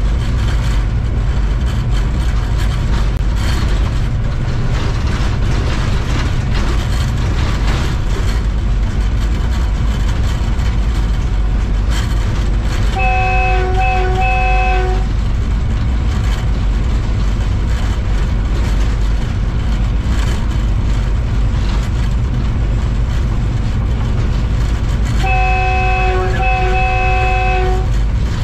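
Diesel train running at speed with a steady low rumble. Its horn, several notes at once, sounds twice: a couple of seconds of quick toots about halfway through, and again near the end.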